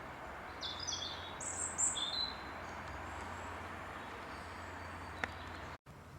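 A few short, high bird chirps over quiet outdoor background noise with a steady low hum, followed by a single faint click near the end.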